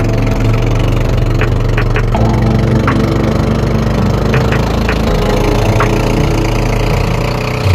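Boat engine running steadily under way, with a few faint clicks over it.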